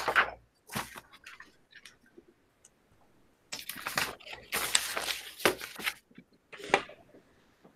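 Scattered rustling and handling noises in short bursts, with a quiet gap of about two seconds before a denser cluster.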